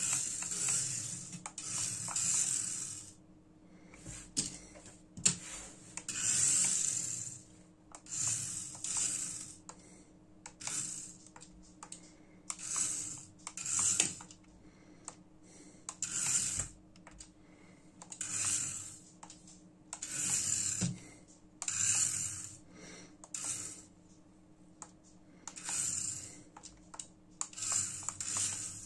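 Small electric motor and gears of a 1:67 mini RC rally car whirring in short spurts of about a second, roughly one every two seconds, as the throttle is pressed and released, with occasional sharp clicks in between.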